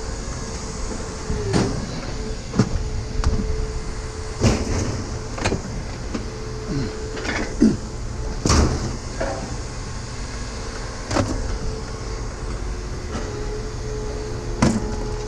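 Irregular metal clanks, knocks and short scraping squeaks from a heavy steel chair being handled and pulled apart for scrap, over a steady mechanical hum.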